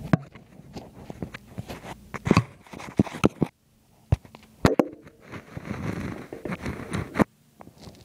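Irregular sharp clicks, knocks and rustling from a phone being handled close to a BMX bike's front wheel, with a brief lull about halfway through.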